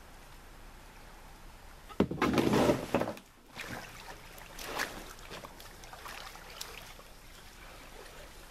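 A canoe running into the shallows at the shore, with a loud, rough scraping and splashing for about a second, about two seconds in. Then come a few smaller splashes and knocks as a person steps out of the canoe into the shallow water and wades ashore.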